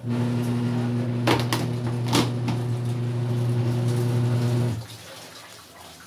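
Sharp twin-tub washing machine's wash motor humming steadily as the pulsator churns clothes in soapy water, with a few sharp knocks in the first half. The motor cuts out about five seconds in, a pause in the wash tub's normal back-and-forth agitation.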